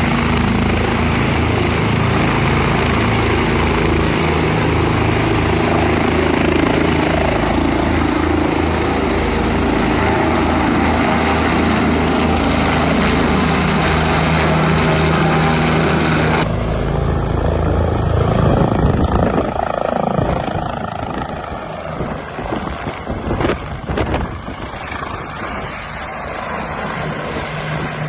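Helicopter running close by, its engine and rotor giving a loud, steady drone. About sixteen seconds in, the sound changes abruptly to a quieter, more uneven rotor noise.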